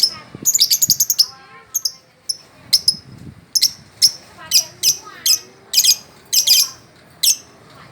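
Small songbird giving a series of short, sharp, high-pitched chirps, about a dozen, spaced roughly half a second to a second apart.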